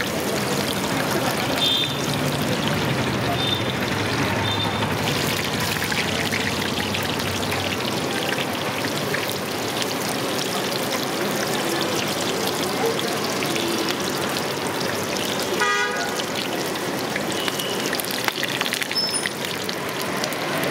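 Hot oil sizzling steadily as batter-coated bajji fritters deep-fry in a kadai. A vehicle horn toots briefly about 16 seconds in.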